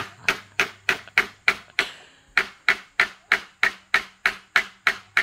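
Hammer driving a nail into a wooden slat: a steady run of sharp strikes, about three a second, with a brief pause about two seconds in.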